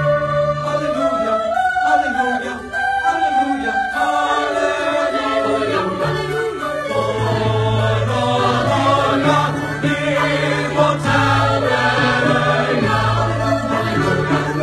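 A mixed-voice choir singing in parts to a recorded accompaniment, with long-held low bass notes under the voices.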